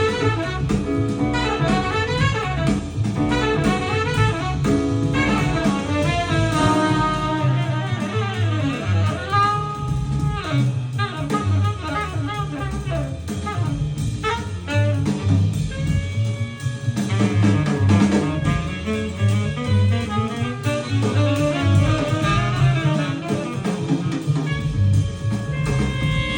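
Jazz with saxophone, drums and double bass, played back through a pair of Cabasse Minorca MC40 three-way bookshelf speakers and heard in the room.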